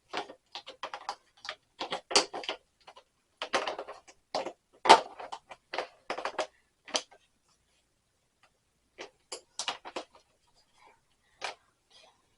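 Irregular clicks and clunks of tools and a plastic toolkit case being handled, the loudest knock about five seconds in. After a pause of about two seconds, a few more scattered clicks.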